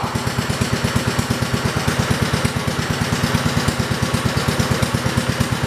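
1968 John Deere 110 garden tractor's single-cylinder engine idling steadily in an even chug of about a dozen pulses a second, warming up after sitting unrun for a while.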